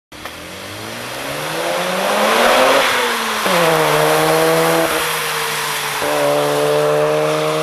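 Mazda RX-7 FD's 13B-REW twin-turbo rotary engine under way: its note rises for about three seconds, drops suddenly, then holds a steady, fairly even pitch.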